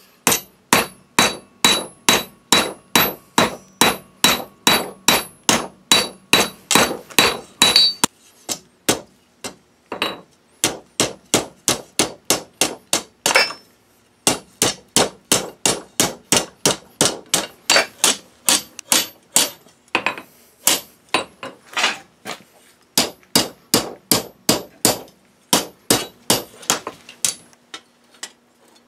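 Hand hammer striking hot steel on an anvil, fanning out the end of a scroll: a steady run of blows about three a second, each with a short ringing note from the anvil. The hammering breaks off briefly about eight and fourteen seconds in, then carries on.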